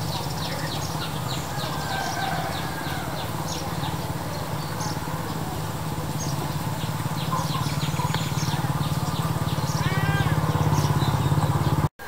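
Ashy woodswallows calling at the nest: many short, high chirps, and about ten seconds in a harsher, bending call. Under them runs a steady low rumble that grows louder toward the end.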